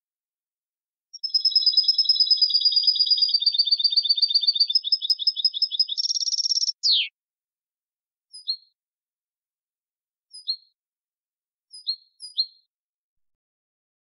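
European goldfinch singing clean song (canto limpio, pure goldfinch song without borrowed notes). A fast, high trill of rapidly repeated notes runs for about six seconds and ends in a quick downward slur. Four short, separate call notes follow, the last two close together near the end.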